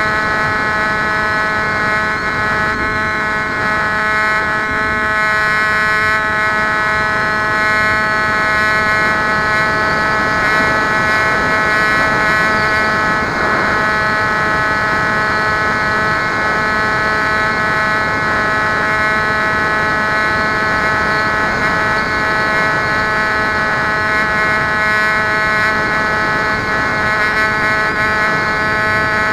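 Steady high whine of a Bixler model glider's electric pusher motor and propeller in flight, over a rush of wind noise.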